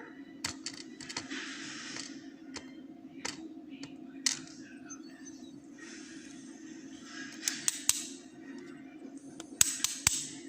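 Scattered small metallic clicks, taps and scrapes of lock pins, springs and tools handled while a rim cylinder is taken apart, with a sharp cluster of clicks near the end. A steady low hum runs underneath.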